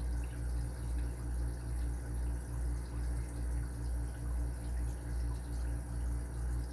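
A steady low mechanical hum that swells and fades about twice a second, like a small motor or pump running.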